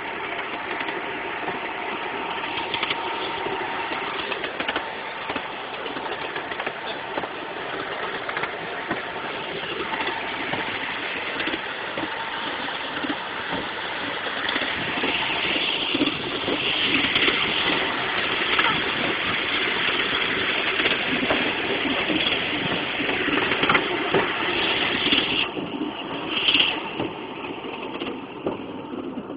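Ride-on miniature railway train running along its track, with a continuous rumble full of small clicks and rattles, getting louder about halfway through.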